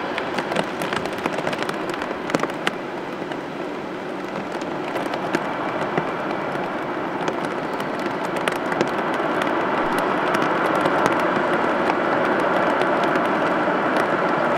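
Boeing 777 twin jet engines at takeoff power on the takeoff roll: a steady jet roar with sharp crackling running through it, growing louder from about eight seconds in.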